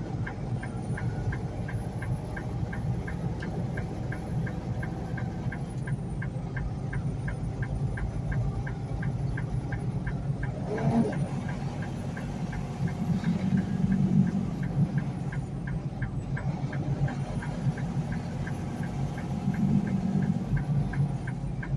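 Semi truck's engine and road noise droning inside the cab while driving, with an even, light ticking several times a second. A single knock comes about eleven seconds in, and the low drone swells twice near the middle and end.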